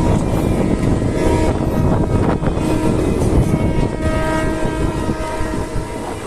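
Passenger train running, heard from on board: a loud rumbling rattle of the carriage with several steady high tones over it that die away near the end.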